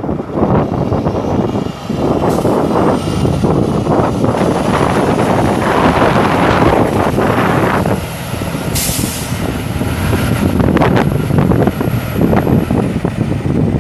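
Semi tractor's Cummins ISX 14.9-litre inline-six turbo diesel running as the truck drives past on gravel, with a high whistle that rises over the first few seconds, holds, and drops away near the end. About nine seconds in there is a short sharp burst of air hiss from the truck's air system.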